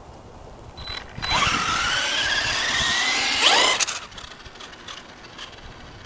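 Electric RC truck with a 3000kv brushless motor running under throttle: a high motor and gear whine that rises in pitch for about three seconds, climbs sharply at the end and then cuts off.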